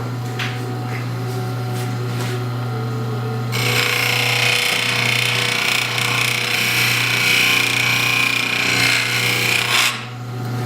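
Wood lathe running with a steady motor hum. About three and a half seconds in, a turning tool bites into the spinning wood with a loud, rough scraping that stops suddenly near the end.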